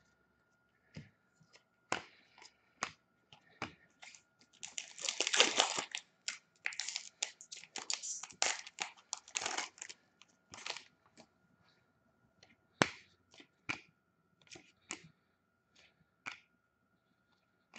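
A trading card pack's wrapper being torn open and crinkled, the loudest and densest stretch in the middle, then scattered sharp clicks and snaps as the cards are handled and flicked through.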